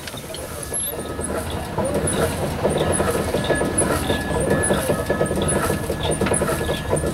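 The twin-cylinder, single-expansion steam engine of a 1912 Waterous 12-ton road roller running, a fast rhythmic beat and clatter of its motion work. It grows louder about two seconds in.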